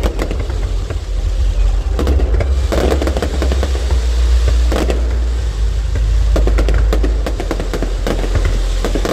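Fireworks going off: a series of bursts every second or two with sharp crackling between them, over a constant heavy low rumble.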